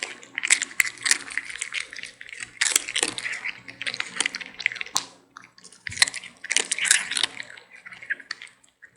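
Kitten and puppy play-biting, with wet mouthing and smacking noises and scuffling in irregular bursts.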